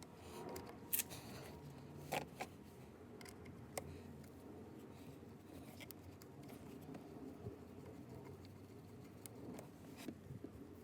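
Light scraping and handling noise with a few sharp clicks, the loudest about a second and two seconds in, from small electrical switches and connectors being worked on and cleaned by hand.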